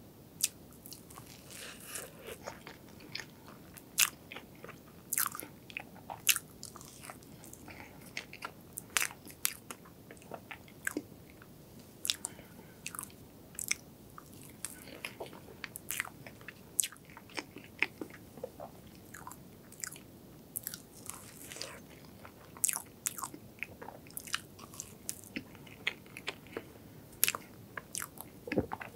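A person eating soft strawberry mousse cake close to the microphone: chewing and biting with many short, sharp mouth clicks coming irregularly.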